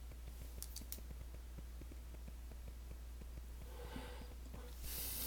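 Quiet room with a steady low electrical hum, a couple of faint clicks about a second in, and a short soft hiss near the end.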